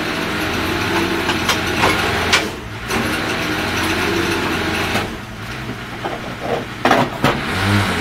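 Forklift engine running steadily, with a few short mechanical clatters.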